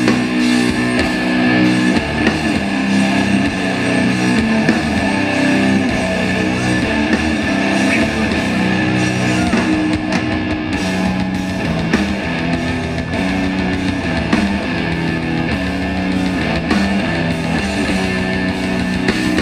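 Death metal band playing live through outdoor PA speakers: heavy distorted electric guitars riffing steadily with a dense, loud band sound and no break.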